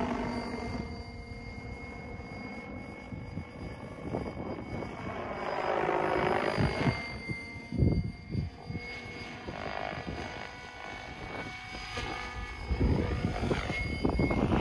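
Electric RC helicopter (Protos 770X Evo) in flight: the rotor buzz swells and rises and falls in pitch as it manoeuvres, loudest about halfway through.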